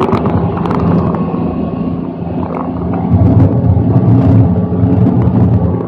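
M113A1 armoured vehicle on the move: its Detroit Diesel 6V53 two-stroke diesel runs steadily under a loud low rumble, with the tracks and hull rattling and clanking over the dirt track.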